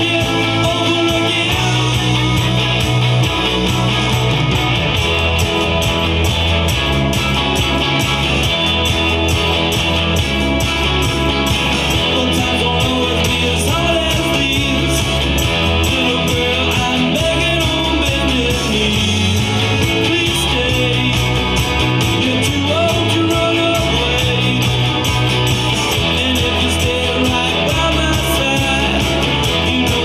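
Rock song with singing and guitar played back through a Frazier Super Texan horn loudspeaker, its original alnico drivers including an Atlas compression driver on a wooden horn. Heard through a camera's built-in microphones, which flatten the dynamics and lose the low bass.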